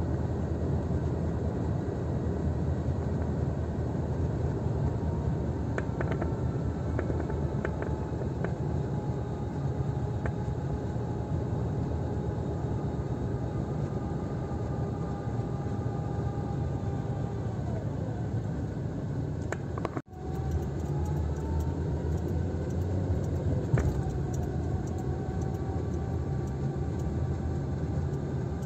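Car driving on a wet road, heard from inside the cabin: a steady low rumble of engine and road noise. A faint whine in it slowly falls, drops away about 18 s in, and climbs again after a momentary cut in the sound. There is a single knock near the end.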